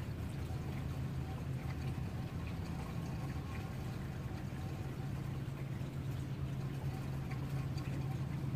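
Steady rain falling, with a constant low hum underneath.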